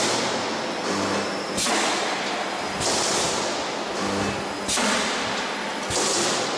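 Machinery of a pressed-steel transformer radiator production line cycling: a sharp clunk every one to two seconds, each followed by a fading hiss, with a low hum between them.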